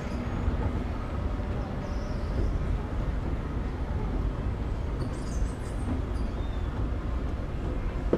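Montgomery escalator running under a rider on the way down: a steady low rumble of the moving steps and drive, with a few faint high squeaks about five seconds in.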